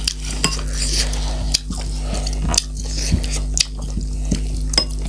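Eating at a meal table: chewing with scattered short clicks and clinks of plate and utensil, about seven in all, over a low steady hum.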